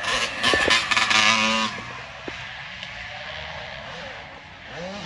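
Dirt bike engine revving hard for about a second and a half, then dropping back to a lower engine drone in the background.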